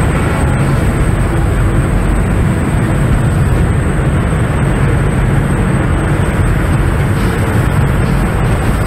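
Steady rush of wind buffeting the microphone over the drone of a high-speed tour boat running fast across open water.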